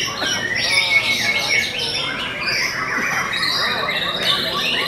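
Many caged white-rumped shamas (murai batu) singing at once in competition: a dense, unbroken tangle of overlapping whistles and rapid trills.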